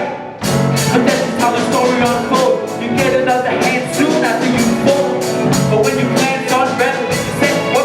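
Live band playing a song with a drum kit keeping a steady beat and a singer's voice over it; the sound dips for a moment just after the start.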